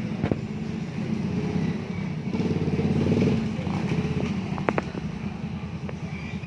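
Motorcycle engine idling, revving up briefly about two and a half seconds in, with a couple of sharp clicks near the end.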